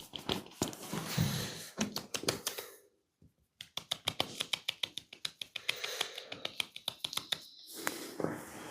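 Rapid percussive massage taps on skin: a quick run of taps, a short pause, then a steady patter of about six taps a second.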